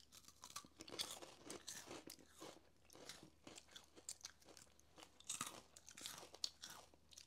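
Quiet, irregular crunching and chewing of a mouthful of Twisties, a puffed corn-and-rice snack.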